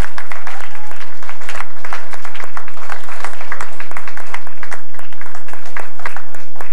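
A hall full of schoolchildren applauding, dense steady clapping, heard on an old VHS tape recording.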